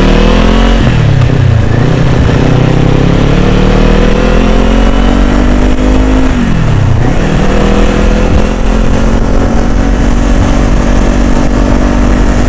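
Kawasaki Z400 liquid-cooled parallel-twin engine under way. The pitch drops sharply about a second in at a gear change, climbs steadily as the bike accelerates, falls again about six seconds in, then holds at a steady cruise.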